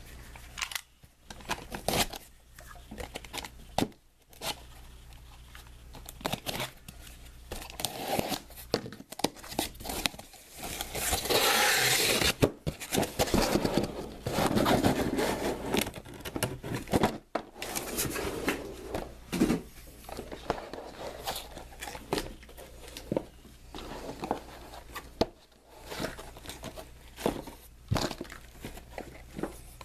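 Cardboard shipping case of trading-card boxes being opened by hand: the Panini security tape is torn, and the cardboard is handled and scraped, with many short knocks and rustles and a longer stretch of tearing near the middle. Near the end, the sealed hobby boxes are handled and knocked together as they come out.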